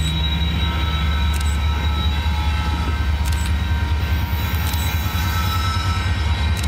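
Union Pacific GE AC45CCTE diesel-electric locomotives approaching slowly, a steady low engine rumble with thin steady high tones over it. A few sharp clicks come now and then.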